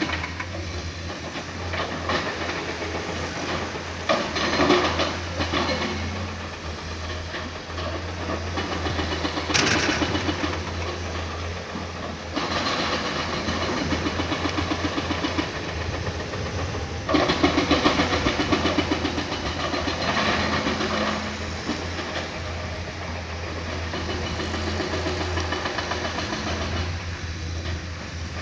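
Excavator's diesel engine running steadily under load, with several stretches of loud scraping and clattering as the bucket digs into rock.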